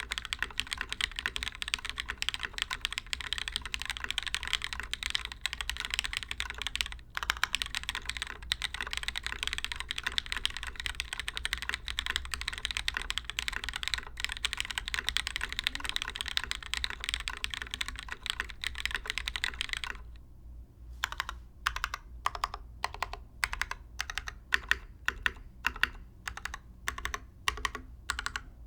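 Typing on a custom mechanical keyboard with lubed, diamond-polished Cherry MX Black linear switches, an aluminium top-mount plate and DCS keycaps: fast, continuous keystrokes, slowing about twenty seconds in to separate presses, two or three a second.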